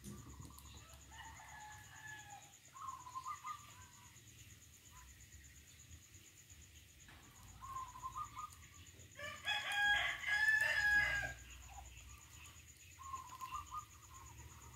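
Farm fowl calling: a series of short calls, and one loud, long crow of about two seconds a little past the middle.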